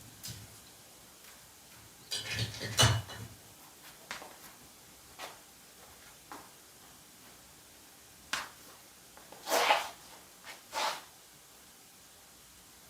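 Scattered handling noises in a quiet room: a few small clicks and knocks, with short rustling scrapes about two seconds in and again near ten seconds.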